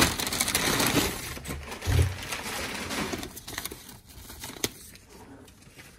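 Brown kraft packing paper rustling and crinkling as it is pulled aside in a cardboard box, loudest for the first three seconds and then dying down to light crackles. A dull thump about two seconds in.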